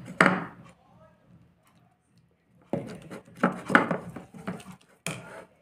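A woman speaking in two stretches, with a faint scrape of a plastic spoon stirring a thick paste in a ceramic bowl in the quieter gap between them.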